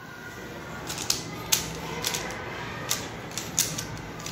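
Plastic puzzle cube being turned fast in the hands: quick, irregular clicks and clacks as its layers snap round, several close together near the end.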